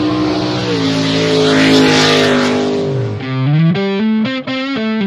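Intro music sting: a held electric guitar chord under a car burnout sound effect, with a rising hiss peaking about two seconds in, then a choppy, rhythmic electric guitar riff starting about three seconds in.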